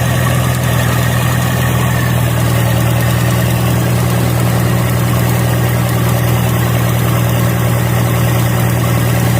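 Toyota Fortuner's diesel engine idling steadily, running on an injector that was taken out, worked on and refitted to cure a hard start.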